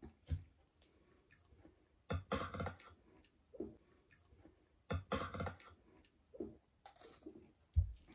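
Eating sounds close to the microphone: chewing food, in two louder spells about two and five seconds in, with scattered clicks of spoons on plates and a dull thump near the end.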